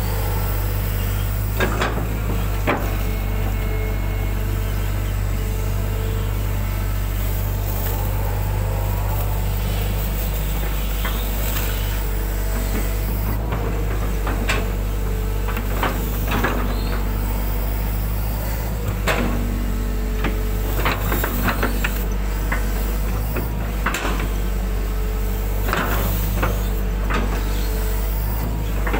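Hydraulic excavator's diesel engine running steadily, heard from the operator's cab, with sharp knocks and rattles now and then as the bucket works loose soil.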